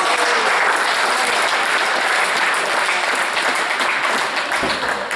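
Spectators applauding at the end of a handball match, with the sports hall's echo.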